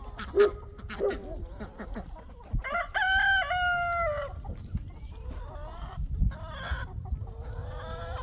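A rooster crowing once, a long call of just over a second about three seconds in, with chickens clucking and short sharp taps around it and another call starting near the end.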